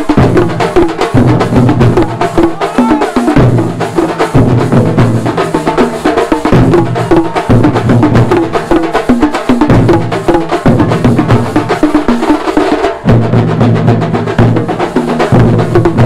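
A troupe of chenda drums beaten with sticks, shinkari melam style, playing a fast, dense rhythm of stick strokes, with deep pitched drum notes recurring underneath in short blocks.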